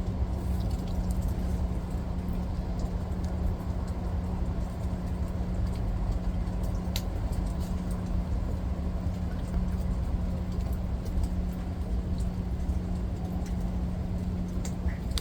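Steady rain falling: an even hiss with a low rumble beneath, a faint steady hum, and a few scattered drip ticks.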